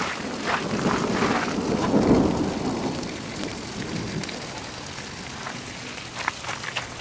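Thunderstorm: a steady hiss of falling rain with a low rumble of thunder that swells about a second in, peaks near two seconds and dies away.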